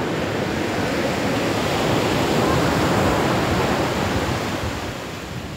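Ocean surf breaking and washing up the beach: a rushing sound that swells about halfway through and then fades.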